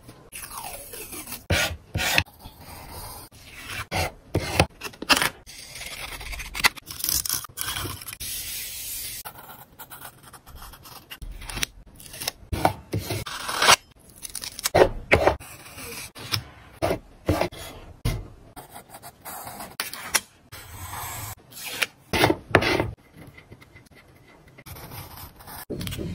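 Paper stickers being peeled from a sticker book and pressed and rubbed down onto a journal sheet: irregular rustling, rubbing and scraping of paper, with frequent sharp clicks and taps.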